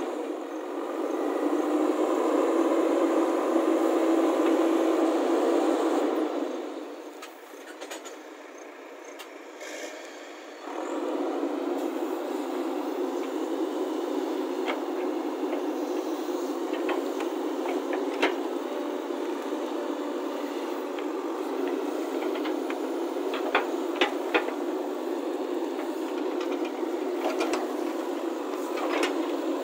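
JCB backhoe loader running as it digs soil, with engine and hydraulic noise and the bucket scraping earth. The sound drops away for a few seconds about a quarter of the way in, then runs steady again, with a few sharp knocks of stones against the bucket in the second half.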